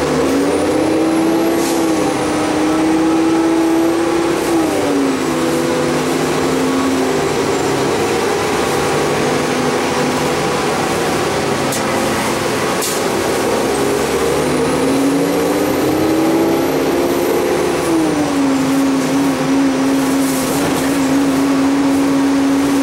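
Transit bus drivetrain heard from inside the cabin, its engine and transmission whine climbing in pitch as the bus accelerates and dropping suddenly at an upshift, about four and a half seconds in and again near the end.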